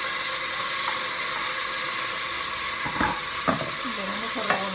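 Chopped tomato sizzling in hot olive and canola oil with garlic in a cooking pot: a loud, steady hiss, with a couple of light knocks about three seconds in.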